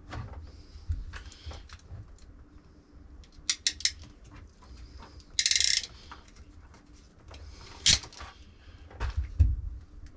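Hands handling and joining electrical wires and connectors: scattered small clicks and rustles, a short rasp about halfway through, a sharp click later on and a few low knocks near the end.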